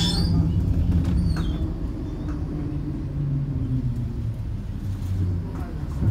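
Inside a T4000 tram: a low running rumble and motor hum as it slows to a halt at a stop.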